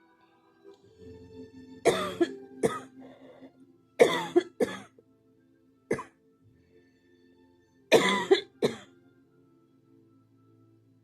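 A person coughing hard in a fit, with about ten sharp coughs grouped in clusters of two or three, over soft background music with held tones.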